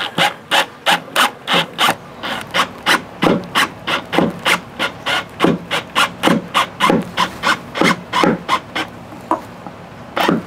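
DeWalt cordless drill-driver working a screw through a transducer flush mount into a fiberglass boat hull, in a regular series of short rasping pulses about three a second. The pulses stop about nine seconds in, and two more come near the end.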